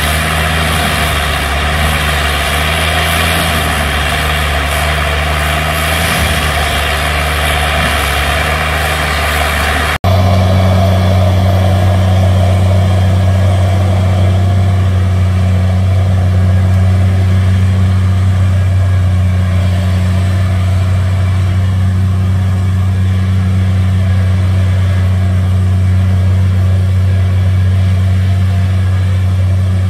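Tigercat M726E mulcher's diesel engine running at steady high revs, with a loud rushing, grinding noise over it from the mulching head working brush. After an abrupt cut about ten seconds in, the engine's deep, steady drone is heard with little else as the tracked machine drives over cleared ground.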